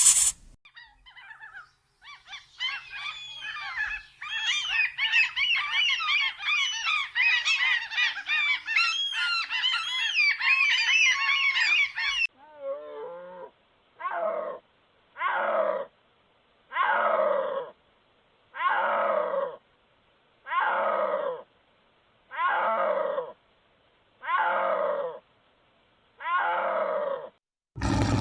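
A dense chorus of many overlapping bird calls, then a sudden change to one animal giving a regular series of about nine loud calls, each sliding down in pitch, roughly one every second and a half.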